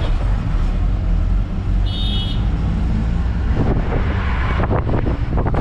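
A moving bus heard from inside: a steady engine and road rumble, with a short high-pitched horn toot about two seconds in.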